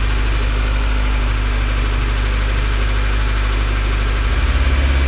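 Acura RSX's K24 four-cylinder engine idling on its first run after being rebuilt and reinstalled. About four seconds in, the low idle note shifts and gets slightly louder.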